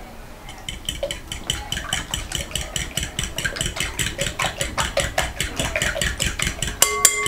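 A fork beating eggs in a glass bowl, clicking against the glass about six times a second. Near the end a sharper knock sets the bowl ringing briefly.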